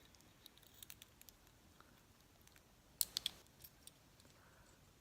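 Faint small metallic clicks and scrapes as a handcuff shim is slid into a handcuff's ratchet and pawl, with a quick group of sharper clicks about three seconds in.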